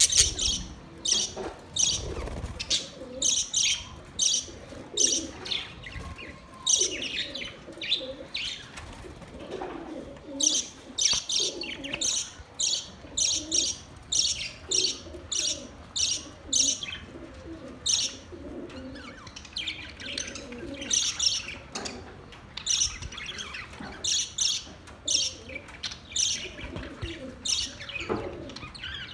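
A flock of budgerigars chirping and chattering: rapid, repeated high chirps over a steady lower warbling chatter, with occasional wing flaps.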